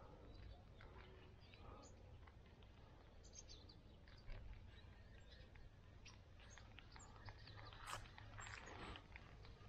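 Near silence: faint birds chirping now and then over a low, steady rumble of wind.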